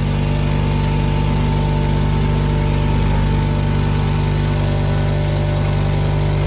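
7.5 HP stoneless flour mill (atta chakki) grinding maize. It runs with a steady, unchanging hum.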